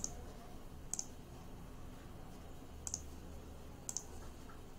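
Computer mouse button clicking: four short, separate clicks spread unevenly over a few seconds.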